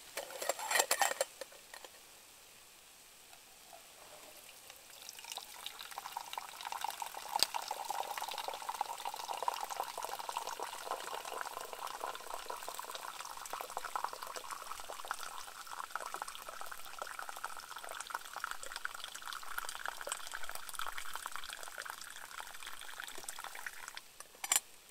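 Coffee poured from a stainless steel pot into a mug in a long, steady trickle whose pitch slowly rises as the mug fills. A short rustle comes about a second in, before the pour starts.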